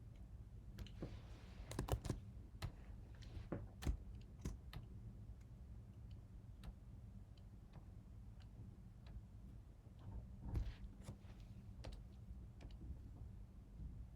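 Irregular clicks and taps of a computer keyboard and mouse in use, bunched in a few quick runs, over a low steady hum.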